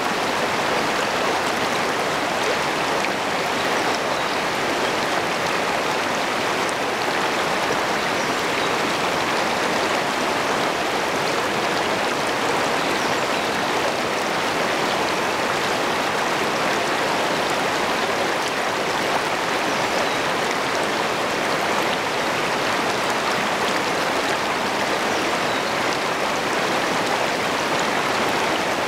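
Shallow river rapids rushing over rocks close to the microphone: a steady, even rush of flowing water that does not let up.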